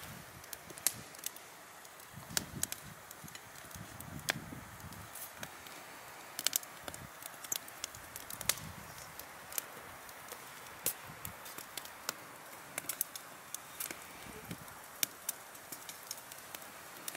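Open wood campfire crackling, with sharp pops at irregular intervals.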